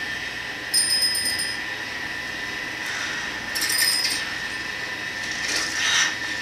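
A bicycle bell rung twice in short trills, about a second in and again near four seconds, heard through a television's speaker over a steady high whine and hiss. A brief rustle comes near the end.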